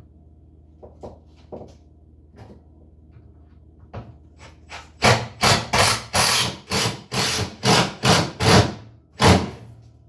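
Cordless power driver driving a mounting screw through wood in about nine short bursts, after a few light clicks as the screw and bit are set; the screw secures a built-in refrigerator into its opening.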